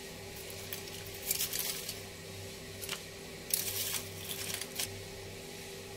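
Ice cubes being dropped into a plastic cup of cendol: a few brief rustling scrapes and light clicks, over a steady low hum.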